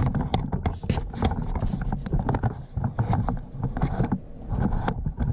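Irregular clunks and knocks of a replacement starter motor and engine parts being handled as the starter is worked into place in a Honda Odyssey engine bay, with rustling of a work jacket close to the microphone.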